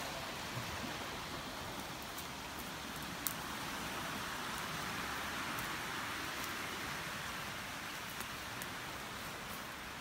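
Steady wash of small waves on a stony shore, a continuous hiss with no break, with a few light clicks and one sharper click about three seconds in.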